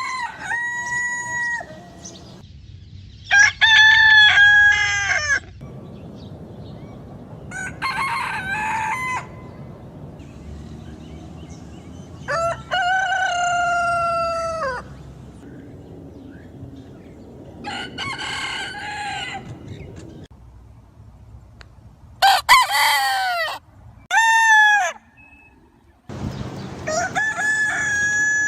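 Rooster crowing over and over, about eight cock-a-doodle-doo calls a few seconds apart, each one to two and a half seconds long and differing in pitch and shape.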